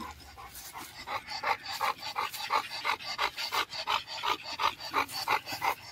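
American Bully dog panting rapidly, about three quick breaths a second.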